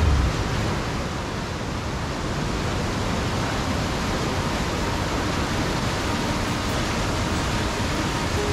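Kootenai River falls and whitewater rapids rushing steadily: an even, unbroken hiss of falling water with no distinct events.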